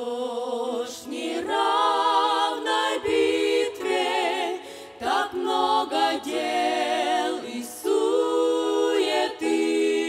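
A women's vocal group singing a Russian hymn in several-part harmony, the voices held with vibrato, in phrases broken by short breaths.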